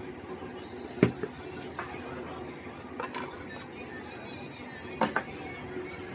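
Small hard clicks and taps of tools being handled on a circuit board bench: a sharp one about a second in, lighter ones after it, and a quick pair near the end, over a steady low hum.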